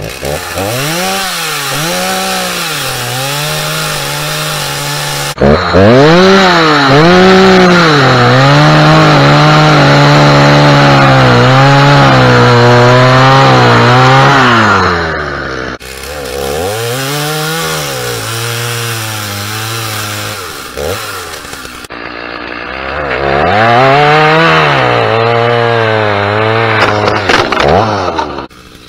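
Stihl two-stroke chainsaw cutting through a log. Each time, the engine revs up and its pitch then drops and holds lower as the chain bites into the wood. This happens several times, with the sound cutting off abruptly near the end.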